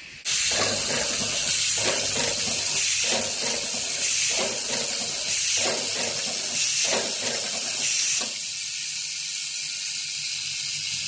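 Automatic denim shank button and rivet attaching machine running: a loud hiss that starts abruptly, with a repeating cycle about every second and a quarter up to about eight seconds in, then a steadier hiss.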